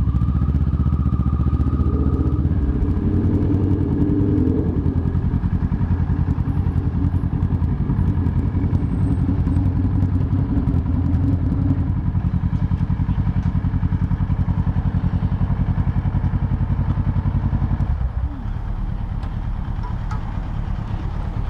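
Kawasaki ER-6n parallel-twin engine running at low speed as the motorcycle rolls slowly to a stop, then idling. About 18 seconds in the sound drops to a quieter, thinner rumble.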